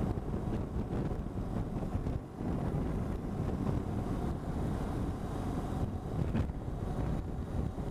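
Wind buffeting the microphone of a camera on a moving BMW R1200GS, over the steady low rumble of the bike and its tyres at road speed.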